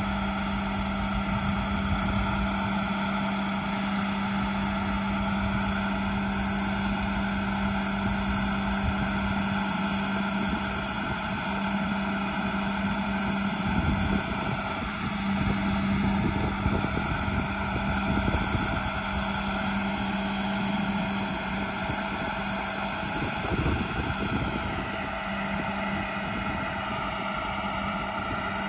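International 7400 truck's diesel engine running at a steady speed, a constant drone with a strong low hum. Wind rumbles on the microphone now and then, most about halfway through, and the engine's pitch dips slightly near the end.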